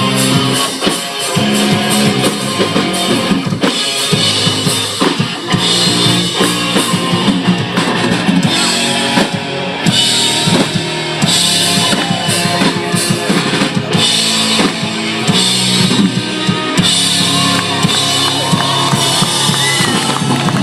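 Band music with a drum kit keeping a steady beat under guitar, with no singing.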